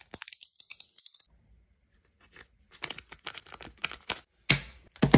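Paper sheet being handled and crinkled: a run of short, scratchy rustles, a pause of about a second, then more rustling, fullest near the end.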